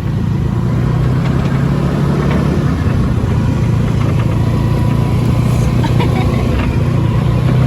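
UTV (side-by-side utility vehicle) engine running steadily with a low, even hum.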